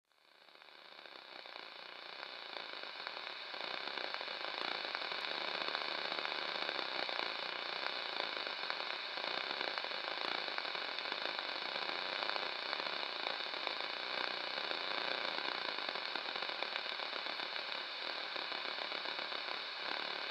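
Crackling static hiss, like a noisy radio transmission, fading in from silence over the first few seconds and then holding steady.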